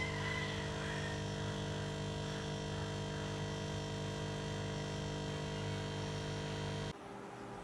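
A steady buzzing hum of several fixed tones from a running motor or electrical appliance. It cuts off abruptly about seven seconds in, leaving a quieter background.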